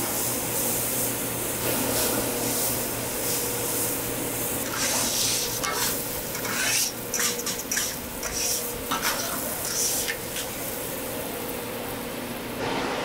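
Cabbage-and-egg toast patties sizzling on an oiled flat-top griddle. Through the middle stretch, a run of short scraping strokes on the griddle surface.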